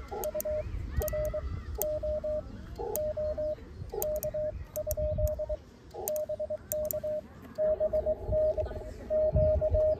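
Morse code (CW) from an amateur radio transceiver: a single steady tone keyed in dots and dashes as the operator sends 'QSL CARD VIA BURO OK? BK' on a paddle key, with faint clicks of the paddle. About seven and a half seconds in, the louder incoming reply 'BK QSL VIA BURO' from the other station takes over, over a hiss of band noise.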